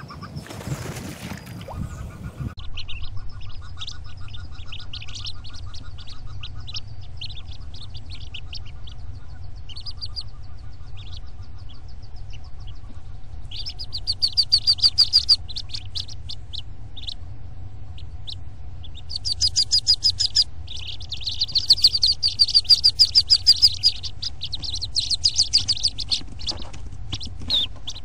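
Day-old wood duck ducklings peeping in the nest box, in rapid runs of high peeps that come in several loud bursts in the second half, the brood calling before they jump from the box. A short burst of noise about a second in.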